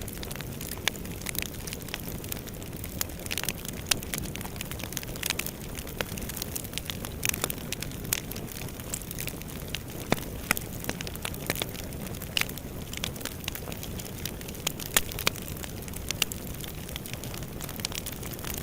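Fire burning in a fireplace: a steady low rumble of flames with irregular sharp crackles and pops scattered throughout.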